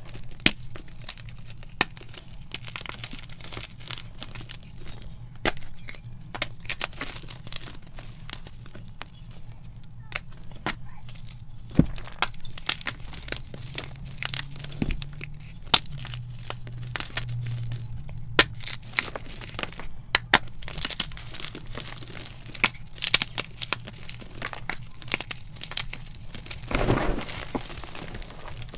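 Blocks of gym chalk crushed and crumbled by hand: a steady crunching and crumbling with many sharp cracks and snaps as pieces break, and a louder crunch near the end. A faint low hum runs underneath.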